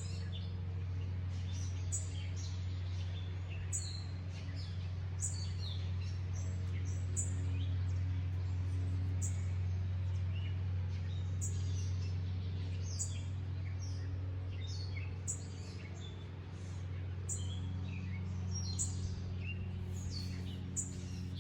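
Small birds chirping many times in quick, scattered calls, over a steady low hum.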